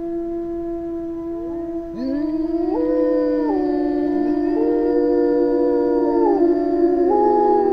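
Several wolves howling, long held calls that glide up, hold and fall away, overlapping one another from about two seconds in, over a steady droning ambient music bed.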